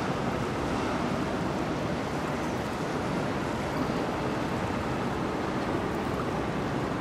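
Steady rushing noise of wind and moving water, even throughout with no single event standing out.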